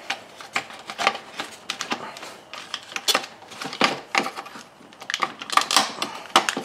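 Irregular clicks and clatters of hard plastic as a plastic engine-bay shroud and its clipped-on wiring connectors are worked loose and lifted out by hand. The clicks are thickest about three seconds in and again near the end.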